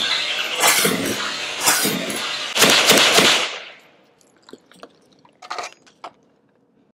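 CZ Bren 2 rifle in 7.62x39 firing through a traditional baffled suppressor: single shots about a second apart, the last two close together about three seconds in. A few faint clicks of handling follow.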